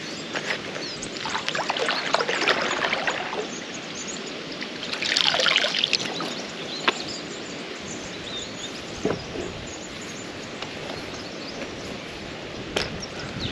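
Water splashing and trickling around a kayak, with two louder swells of splashing about a second and five seconds in, as from paddle strokes.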